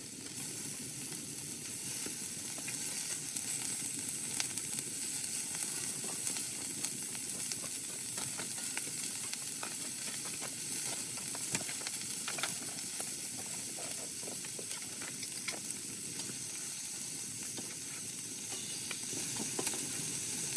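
Food frying in a hot pan: a steady sizzle with scattered small pops and crackles.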